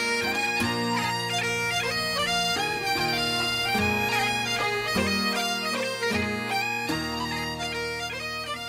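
Background music: a melody over steady low drones.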